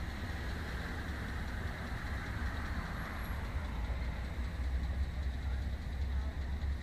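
Steady street traffic noise at a road intersection: car engines and tyres with a continuous low rumble.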